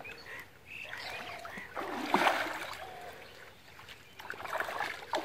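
Water splashing and sloshing as a fishing net is dragged through shallow water by people wading, loudest about two seconds in.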